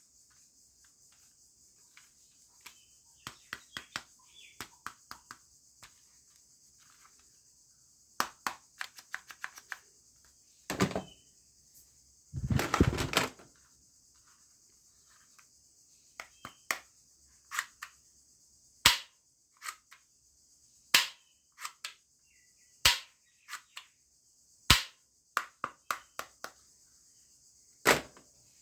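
Toy gun being handled and fired: clusters of small mechanical clicks and two brief rasping bursts near the middle, then single sharp shots about every two seconds toward the end.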